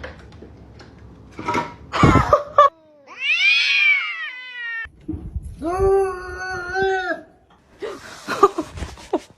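A cat yowling: one long call that rises and falls, then a second long, steadier call. There are bouts of knocking and scuffling before and after.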